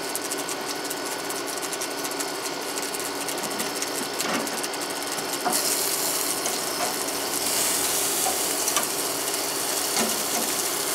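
Chicken wings sizzling and crackling on a gas grill, a dense run of fine pops, with a louder hiss from about halfway through as juice runs out onto the grill.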